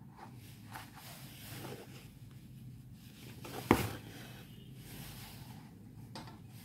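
Faint rustle of embroidery thread being drawn through fabric stretched in a hoop, with one sharp knock about three and a half seconds in.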